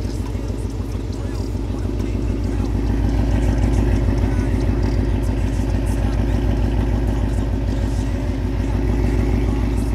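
Ford Mustang's engine and exhaust running at low speed as the car rolls slowly away. The exhaust note is louder from about three seconds in and eases off near the end.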